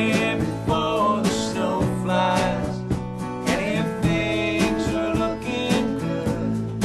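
Country-style music led by acoustic guitar, with steady strummed and plucked notes under a bending melody line.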